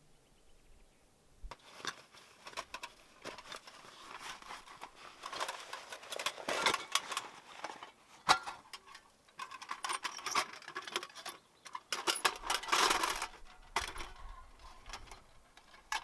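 Hands working with camp gear: irregular rustling, clicks and light metallic clinks, with one sharp crack about eight seconds in.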